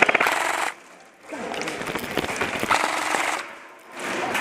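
Airsoft electric gun (AEG) firing a rapid full-auto burst of evenly spaced shots, about 24 a second, lasting under a second at the start. From about a second and a half in comes a longer stretch of irregular clatter with scattered clicks.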